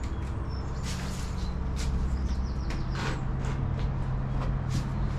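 Footsteps crunching on debris, a short crunch about once a second, over a steady low mechanical hum.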